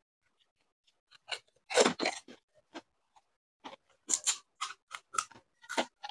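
Crisp, hollow fuchka (panipuri) shells cracking and crunching as they are broken open and eaten: a run of sharp crackles, loudest in a cluster about two seconds in.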